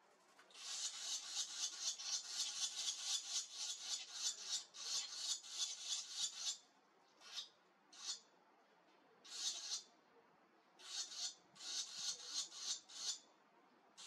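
Barn swallow nestlings begging at a feeding, a rapid raspy chorus of calls. A long unbroken run for about six seconds, then several shorter bursts.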